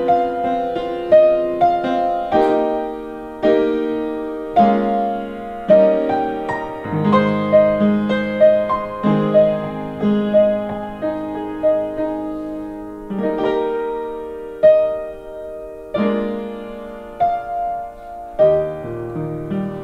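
Upright piano (a Yamaha) played at a slow, gentle tempo: a melody over held chords, each note struck and left to ring and fade.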